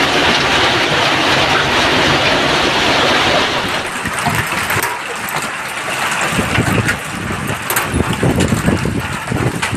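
Heavy hail and rain pelting down in a severe storm: a dense, steady rushing noise that eases a little about four seconds in, leaving scattered sharp hailstone hits and low gusts of wind buffeting the phone's microphone.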